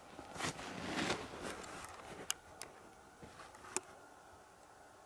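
Footsteps crunching through snow, slowing to a stop about two seconds in, followed by three short sharp clicks.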